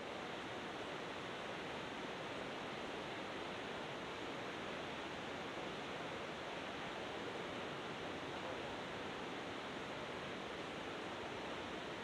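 Steady, even roar of big ocean waves breaking, one wash of noise with no single crash standing out.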